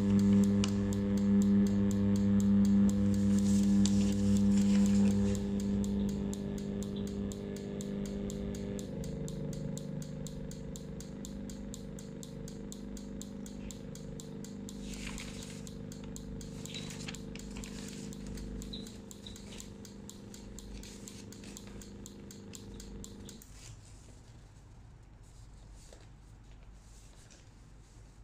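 Two electric swing-gate actuators running together, a steady motor hum with gear whine as they drive their push rods out. The sound shifts partway through, then one motor stops about two-thirds of the way in and the other a few seconds later, as each arm reaches the end of its travel.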